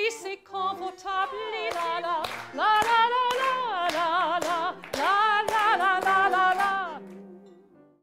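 Soprano singing a tango song with wide vibrato, cut by sharp hand claps, then fading out near the end.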